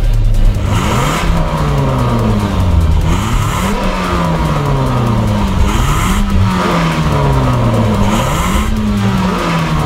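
Car engine revved at a standstill ahead of a 0–100 km/h run: four revs, each climbing quickly and then sinking slowly back down.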